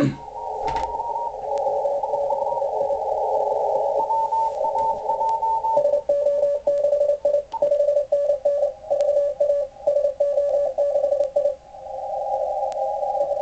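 Morse code (CW) contest signals received on an Icom IC-7600 HF transceiver and heard through its speaker, with several stations' tones and band hiss squeezed into a narrow audio passband. About six seconds in, one station's keyed tone dominates and sends clearly in dots and dashes. Near the end the crowded mix of overlapping signals and hiss returns.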